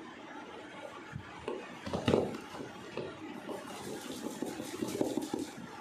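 Cardboard fireworks box being handled and pried at: a loud knock about two seconds in, then a run of scraping and scratching on the cardboard.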